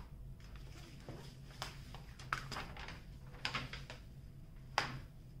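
Protective paper cover being peeled off the sticky adhesive of a diamond painting canvas: faint crinkling with a few sharp crackles and ticks, the sharpest near the end.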